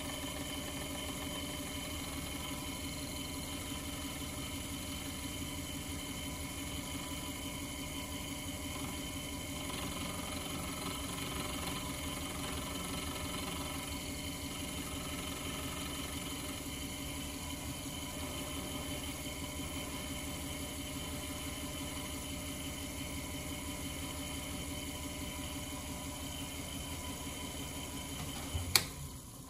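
Watchmaker's lathe running steadily as its tool rounds off a small square part, a machine hum with a few constant tones. Near the end there is one sharp click, and the running sound dies away.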